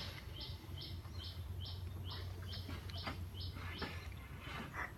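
A bird chirping repeatedly in short high notes, about two to three a second, stopping about four seconds in, over a low steady hum. A few faint clicks come in the later seconds.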